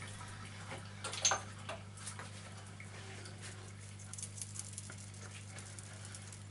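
Black pepper being dispensed from a small jar over the food: faint, quick, light clicks, thickest about four to five seconds in, with one louder click about a second in. A steady low electrical hum runs underneath.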